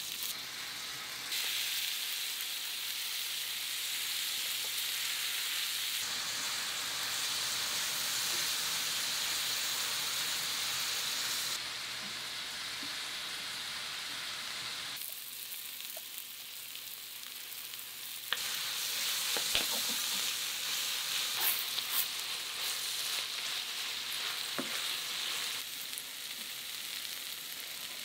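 Yakisoba noodles sizzling and being stir-fried in an iron frying pan, a steady frying hiss that jumps in level abruptly several times. A few sharp clicks of utensil on pan come a little past the middle and toward the end.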